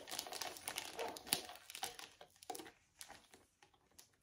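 Packaging crinkling and rustling as a perfume box is opened by hand. The rustling is dense for the first two seconds, then thins to a few scattered light clicks.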